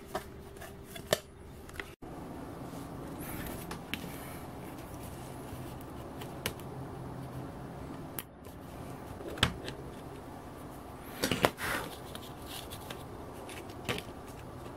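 A few sharp clicks and short scrapes of a razor blade and tweezers working on a 3D-printed plastic plate, with a small cluster about two-thirds of the way through, over a steady low hum.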